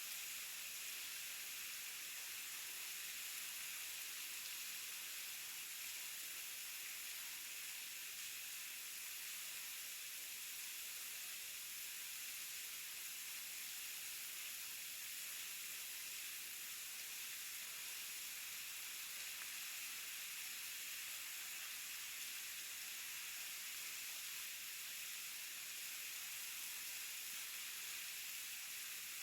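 Waterfall: falling water making a steady, even hiss with little low rumble.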